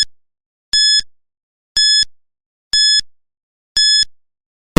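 Electronic countdown-timer beeps: short, identical high beeps about once a second, five in all.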